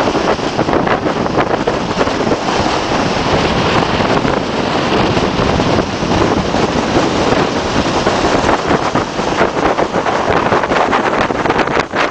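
Wind blowing across the microphone over the steady rush of surf breaking on a rocky shore.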